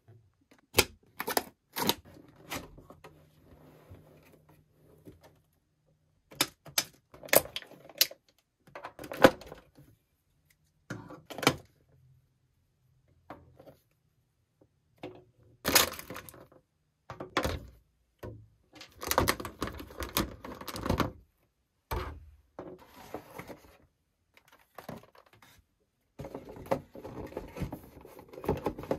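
Toy packaging being handled: sharp plastic clicks and knocks as small figures are pulled from a clear plastic blister tray in a cardboard box, with a few longer stretches of rustling and scraping of plastic and cardboard.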